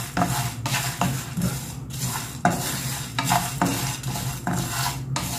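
Whole spices, mainly coriander seeds with dried red chillies, dry-roasting in a nonstick frying pan without oil, stirred with a wooden spoon. The seeds rustle and scrape across the pan in repeated strokes, about two a second.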